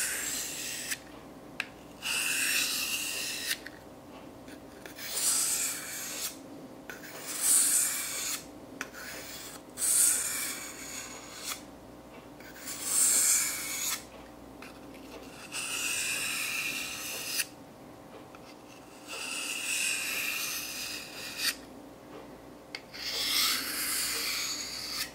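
Hand rubbing strokes on the knife's parts while it is being cleaned up: about nine long scrubbing strokes of one to two seconds each, with short pauses between.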